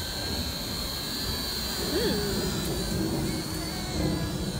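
CloudRider quadcopter drone's motors and propellers running with a steady high whine, over a low rumble of wind on the microphone.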